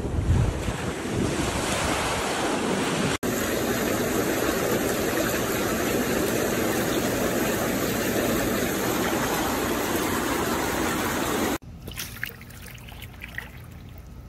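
Ocean surf with wind on the microphone. A few seconds in it cuts to an inflatable hot tub's bubble jets, churning and bubbling the water steadily. Near the end it drops suddenly to a much quieter background.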